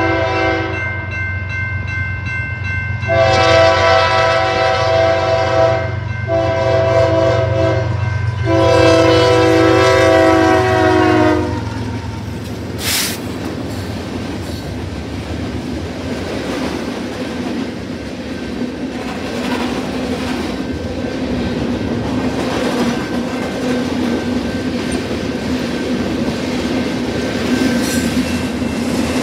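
BNSF freight locomotive's horn sounding a series of long blasts, the last ending about eleven seconds in. Then the locomotives and freight cars roll past close by, a steady rumble with the clickety-clack of wheels over the rail joints.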